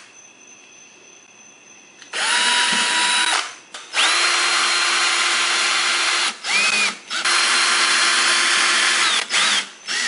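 Cordless drill/driver driving screws through a rubber tread strip into a lawnmower wheel. The motor whine comes in several runs, each rising quickly at its start; the longest lasts about two seconds, with short pulses between runs and near the end.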